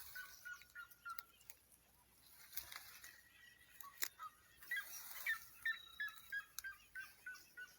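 A bird calling in a quick run of short notes, about three or four a second. It pauses about a second and a half in, then picks up again, with a few sharp clicks over it.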